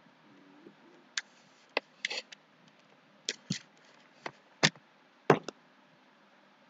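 A run of about ten sharp, irregular clicks and taps from a computer keyboard and mouse being handled, bunched between about one and five and a half seconds in, with the loudest near the end.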